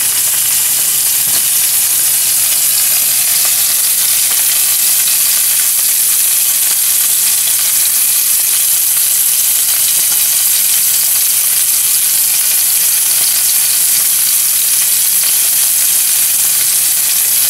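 Two Angus strip steaks searing in a hot frying pan with a little olive oil: a steady, even sizzle.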